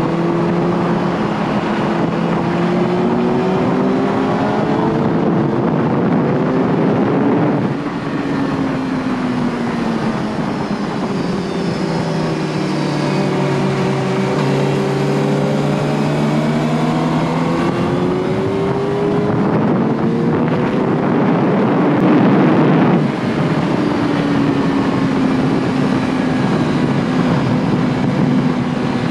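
A Suzuki GSX-R 1000's inline-four engine on track, its pitch climbing under throttle and falling back. The engine note drops sharply about 8 s in and again about 23 s in, with wind rushing over the microphone throughout.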